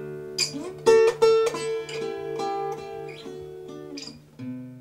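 Acoustic guitar being fingerpicked: plucked notes and chords ring out over a sustained low bass note, which changes to a new bass note near the end.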